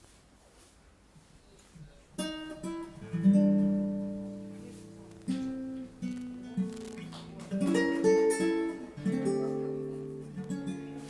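Acoustic guitar music played back through a tube hi-fi amplifier and speakers. After about two seconds of quiet, plucked notes and chords begin, each ringing out and fading.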